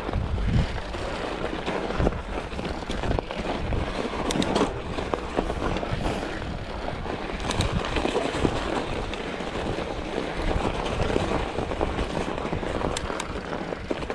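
Mountain bike rolling over rough singletrack: continuous tyre and trail noise with a steady stream of knocks and rattles from the bike over bumps.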